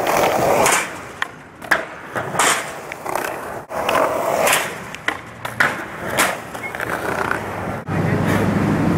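Skateboard wheels rolling over paving tiles, with several sharp clacks as the board is popped and landed. Near the end this cuts to a steady low drone of a vehicle engine.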